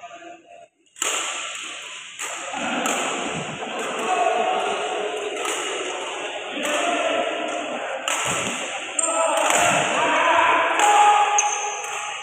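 Badminton rackets striking shuttlecocks again and again, roughly one sharp hit every three-quarters of a second, with voices calling over the hits.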